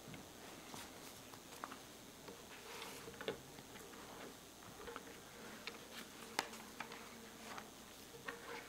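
Faint rustling and small taps of paper sheets being handled and laid on a wooden pulpit, with a sharper click a little past six seconds in.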